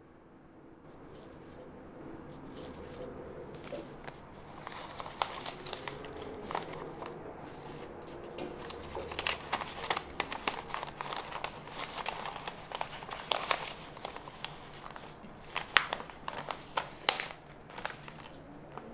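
Paper rustling and crinkling as a photograph and a paper envelope are handled, with many sharp crackles that come thicker and louder in the second half.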